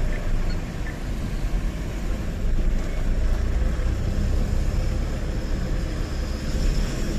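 Tata 1512 truck driving and turning, heard from inside the cab: a steady low engine and road rumble.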